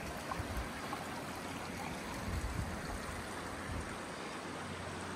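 A shallow creek flowing over rocks: a steady, even wash of running water.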